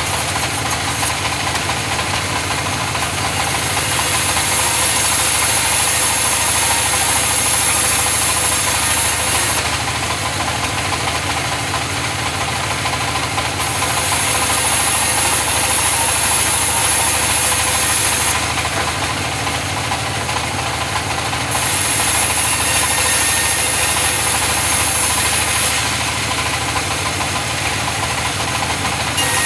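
Engine-driven saw sawing mahogany wood, running steadily with a low knocking hum. A high hiss comes in for spells of four to five seconds and drops out again, three or four times, as the blade works through the wood.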